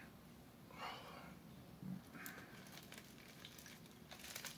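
Faint eating and food-handling sounds close to silence: a few soft rustles and scattered small clicks as a foil-wrapped burrito is handled and chewed.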